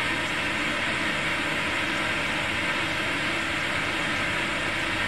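Steady, even hiss and rushing noise from an instrumental transcommunication (ITC) apparatus played through a loudspeaker: the noise background in which participants listen for faint spirit voices.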